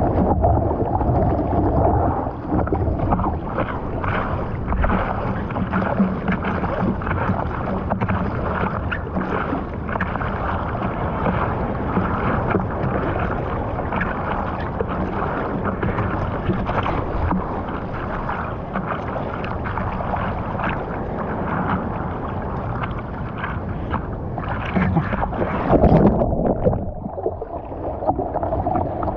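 Seawater sloshing and splashing against a surfboard as a surfer paddles and sits on it, with wind on the microphone. A louder burst of splashing comes near the end.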